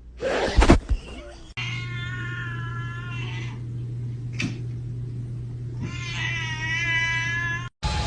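A cat's long, drawn-out yowls, two of them of about two seconds each, over a steady low hum, after a brief loud noise about half a second in.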